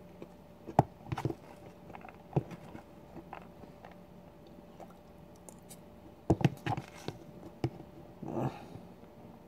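Close-up eating sounds: a metal spoon clicking and scraping against a plastic food tub, with chewing in between. The sharpest click comes about a second in, and a cluster of clicks follows around six to seven seconds.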